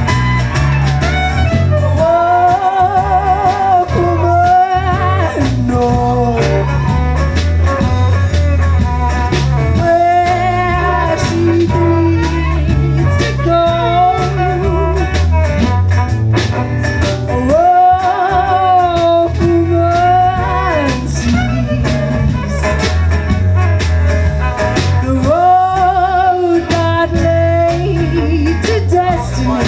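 Live folk-roots band playing: a woman sings with vibrato over strummed acoustic guitar, electric bass, violin and percussion, with a steady beat.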